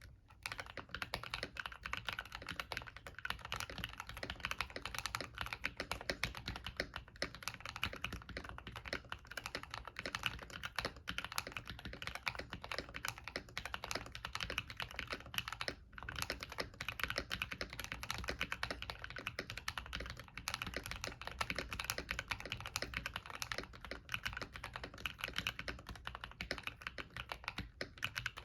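Continuous typing on a modded MK870 tenkeyless mechanical keyboard with KTT Kang White linear switches, PBT keycaps and a coin weight mod in the case: a dense, steady stream of keystrokes with one short break about halfway through.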